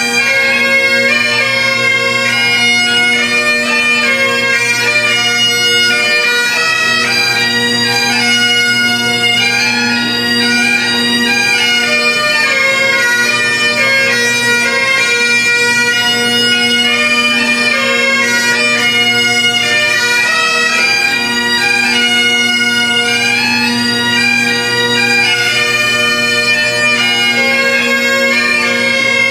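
Bagpipes playing a tune over their steady drones, loud and unbroken.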